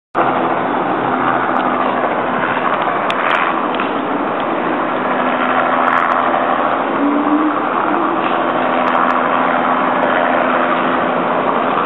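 Helicopter flying overhead: a steady drone of engine and rotor noise with a constant low hum.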